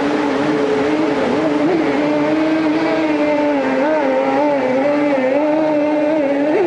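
Mercury 50 hp outboard motors on racing hydroplanes running flat out at high revs, their pitch wavering up and down as the boats bounce through the rapids, over the rush of whitewater.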